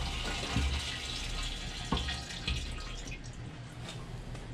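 Diesel fuel pouring from a plastic jug through a hose into an aluminium fuel cell: a steady splashing trickle into the tank, with a couple of light knocks about two seconds in.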